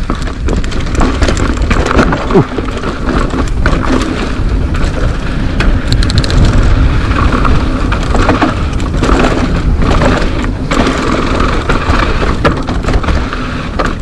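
Mountain bike riding fast down a dirt enduro trail: steady wind rumble on the microphone over tyres on dirt, with the bike's chain and frame rattling.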